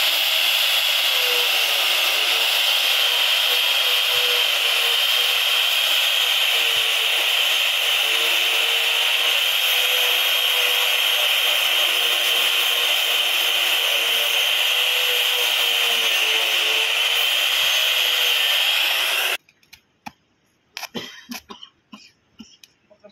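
Makita angle grinder grinding into the top of a steel pipe: a loud, steady high-pitched grinding noise over the motor's whine, which cuts off suddenly about 19 seconds in. After it come a few light, scattered knocks.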